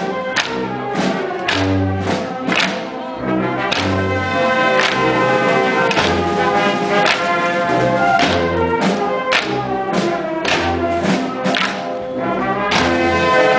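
Procession band playing a processional march: held brass notes and chords over regular drum strokes, a little under two a second.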